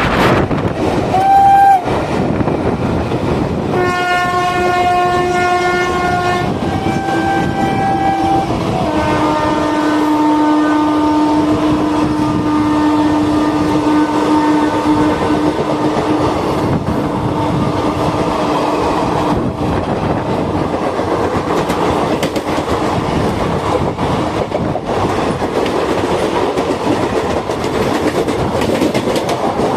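WAP-4 electric locomotive's horn sounding as trains cross at speed: a short blast about a second in, then long blasts from about four seconds, the pitch falling near nine seconds into a lower held note that fades out around nineteen seconds. Under it, the steady rumble and clickety-clack of train wheels on the rails.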